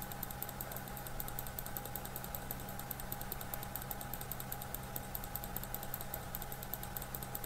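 Steady low hum made of several held tones, with a faint, even, fast ticking over it.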